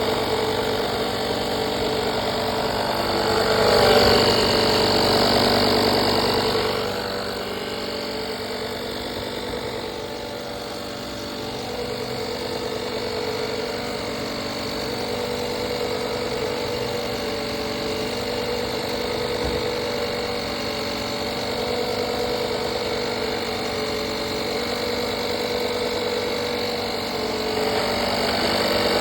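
Tire air compressor running steadily with a mechanical hum, louder for a few seconds starting about four seconds in.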